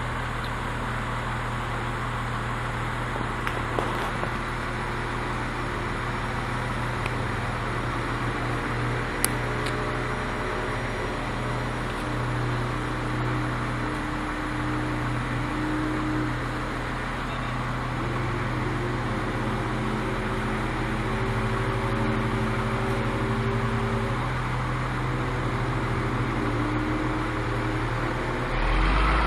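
Heavy diesel engine running steadily, its pitch drifting slightly up and down, with a single sharp click about nine seconds in and a louder low surge near the end.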